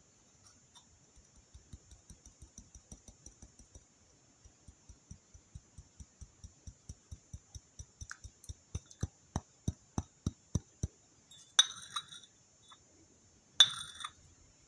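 A run of soft, even taps, about four a second, growing louder, then two sharp clinks of a porcelain coffee cup and saucer near the end as the saucer is lifted off the upturned cup.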